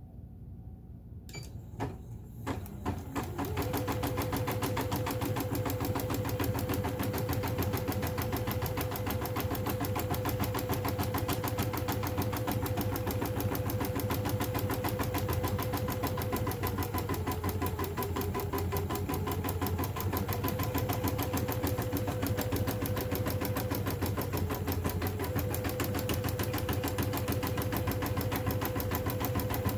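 Janome Memory Craft 8000 embroidery machine stitching out a design. A few clicks as it starts, then from about three seconds in a steady, rapid run of needle strokes over a motor hum, with a whine that drops lower briefly twice.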